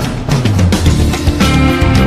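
Intro music: a steady drum-kit beat over a low bass line, with sustained held tones coming in about one and a half seconds in.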